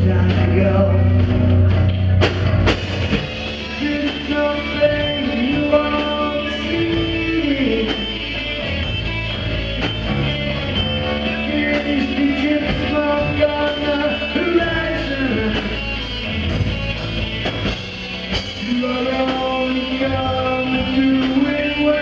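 Live rock band playing loud: electric guitars over a driving drum kit, with a lead line whose notes bend up and down.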